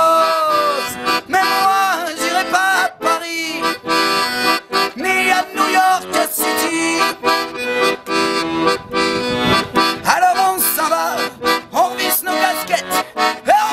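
Accordion playing an instrumental passage of a French song, a melody over held chords with a steady rhythmic beat behind it.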